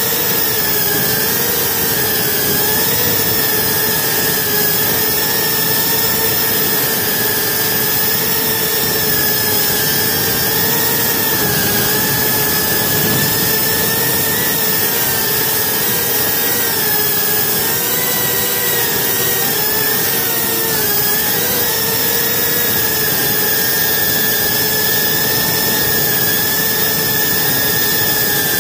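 GEPRC Cine Pro 4K FPV quadcopter's brushless motors and propellers whining steadily, heard close up. The pitch wavers up and down with throttle changes, most of all in the middle stretch.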